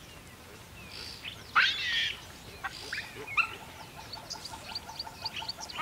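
Outdoor wildlife calls: one louder squeaky call about one and a half seconds in, then a run of short, high chirps.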